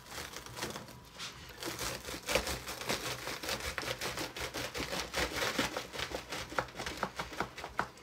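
Plastic cutter grid of a Kellogg's Rice Krispies Treats Maker being pressed and worked down through Rice Krispies treats in its plastic pan: a run of irregular crackles and clicks from the crisped rice and plastic, coming faster in the second half.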